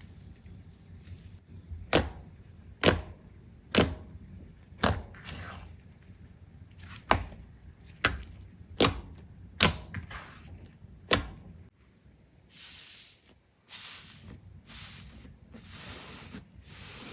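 Slime being handled: about nine sharp pops spaced roughly a second apart, then a run of soft crackling squishes near the end.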